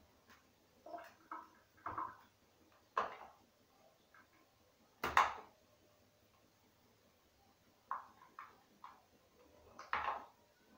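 Irregular clicks and knocks of hands and fittings being worked on a white plastic water pipe at the wall, with a sharp knock about five seconds in as the loudest and another near the end.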